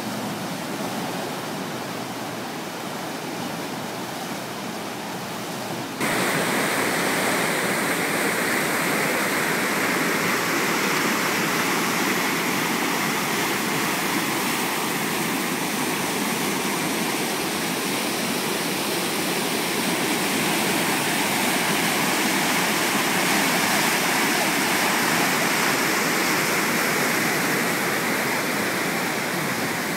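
Floodwater in a swollen river rushing and churning over standing waves, a dense steady water noise. About six seconds in it jumps a step louder and brighter and then holds steady.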